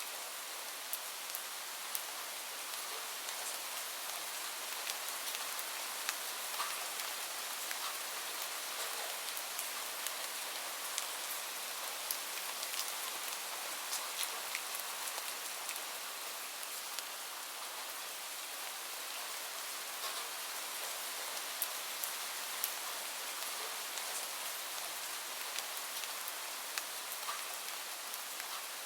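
Steady rain falling, an even hiss with many individual drops ticking sharply on a hard surface throughout.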